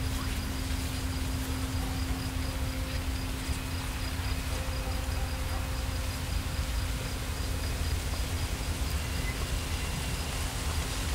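Summer insect ambience: a steady low insect buzz and a faint high pulsing trill like a cricket's, over an even rush of wind through plants with low wind rumble.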